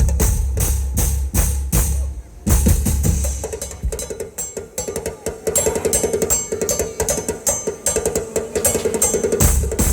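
Music with a steady drum beat and heavy bass. About two and a half seconds in, the heavy bass drops out for a lighter passage with a held tone, and the heavy bass comes back near the end.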